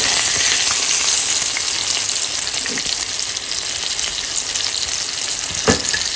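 Rohu fish steaks sizzling steadily as they shallow-fry in hot oil in a pan. A single sharp knock comes near the end.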